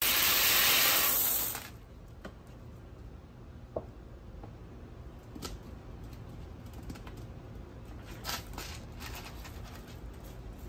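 Dry elbow macaroni poured into a clear plastic bin, a dense rattling rush for about a second and a half that stops suddenly. After it come scattered light clicks and rattles of pasta and plastic as a ferret climbs into the bin.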